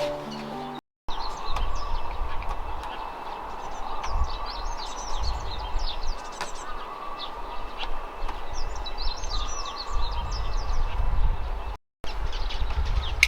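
Several small birds chirping and twittering over a low, uneven rumble. A short bit of music ends about a second in.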